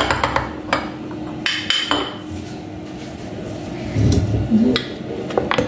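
Ice cream scoop clicking and knocking against a glass dessert bowl and blender jar while scooping frozen banana ice cream: a quick run of light clicks at the start, a few more about one and a half to two seconds in, and a couple near the end, over a faint steady hum.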